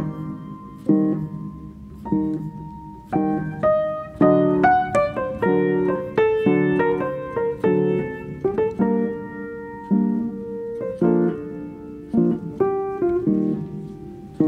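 Background piano music: a melody of struck notes, each ringing and fading, several notes a second.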